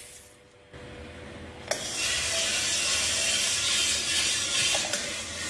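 Small gas-fired drum coffee roaster: a click about one and a half seconds in, then a steady rattling hiss as the green-bean charge pours from the hopper into the turning drum to start the roast.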